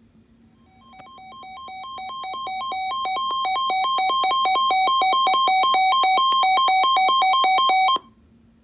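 Electronic alert tone opening an Emergency Alert System warning: a buzzy synthesized tone flipping quickly and unevenly between two pitches. It fades in from about a second in, holds loud, and cuts off suddenly about eight seconds in.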